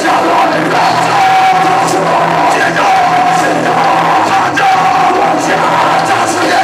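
Live rock band playing loudly with a shouted, yelled vocal over distorted guitars and drums.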